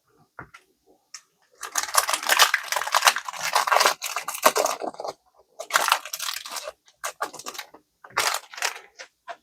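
Foil Pokémon booster pack being torn open and its wrapper crinkled. A long stretch of crackling rips is followed by three shorter crinkles.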